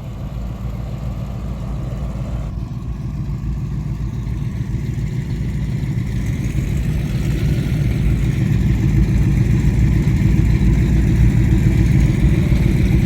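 High-performance powerboat engines idling with a deep, steady rumble that grows steadily louder.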